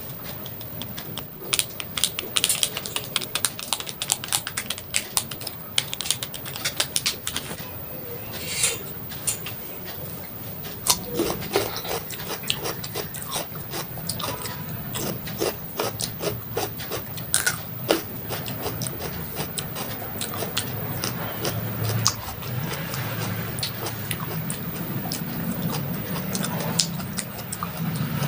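Close-up handling of a salad plate: seasoning shaken from a small paper packet, then fingers picking cucumber pieces off a steel plate, heard as many sharp clicks and scratchy rubs. A low hum rises in the second half.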